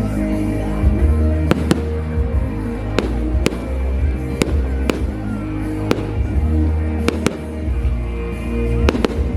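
Fireworks going off in a dozen or so sharp, separate bangs over loud music with sustained chords and heavy bass.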